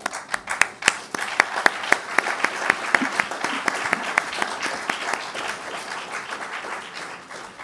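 Audience applauding, starting at once with many sharp claps that thin out and fade over the last few seconds.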